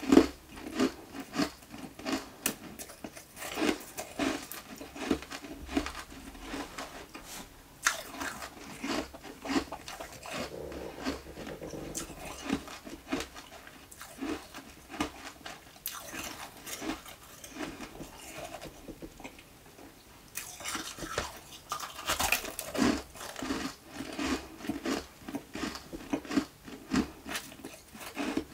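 Close-miked chewing of crunchy ice nuggets: a rapid, irregular run of sharp crunches and crackles as the ice is bitten and ground between the teeth. The chewing eases off briefly past the middle, then picks up again with louder crunches.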